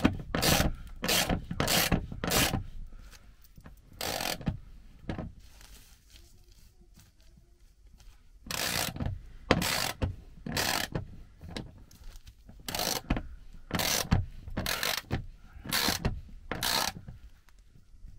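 Hand socket ratchet tightening a bolt through a steel plate into a wooden roof beam: repeated rasping clicks of the pawl on each back-swing, about two strokes a second. The strokes come in two runs with a quieter pause of a few seconds in the middle.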